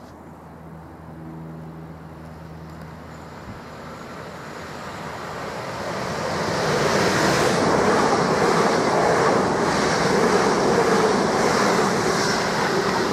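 Southern Class 377 Electrostar electric multiple unit approaching and running through the station close by at speed. It grows louder over the first several seconds, then becomes a loud, steady rush of wheels on rails as the carriages pass.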